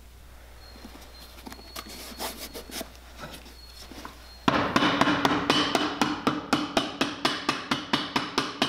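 Cobbler's hammer tapping a thin glued piece of leather onto a cowboy boot's leather insole to seat it under the ball of the foot. Soft handling and pressing sounds first, then about halfway in a run of quick, even taps, about four or five a second.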